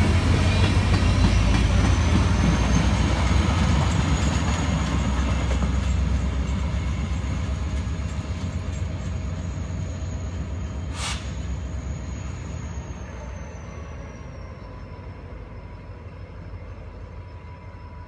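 A diesel freight work train rolling past and away: a low rumble of the locomotives and wheels on the rail, with a thin, high, steady wheel squeal, fading steadily as it recedes. A single sharp click comes about eleven seconds in.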